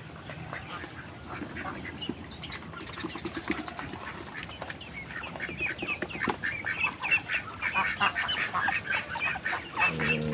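A flock of domestic ducks calling: a dense run of short, repeated calls that grows louder from about halfway through.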